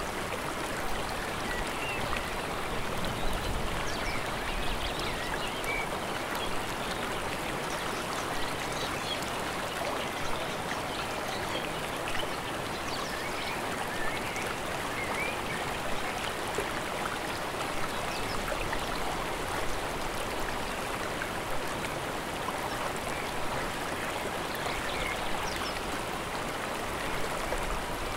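Rushing water of a mountain stream, a steady even hiss that does not let up.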